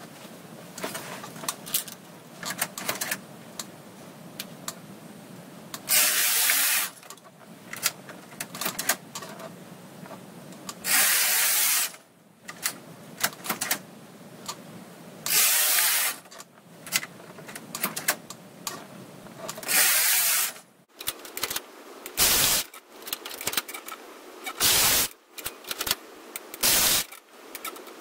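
Brother KH710 knitting machine carriage pushed across the needle bed, knitting a row with a loud rasp of about a second, four times some four to five seconds apart, with clicks between. In the last few seconds come sharper separate clicks and short rasps as the machine is handled.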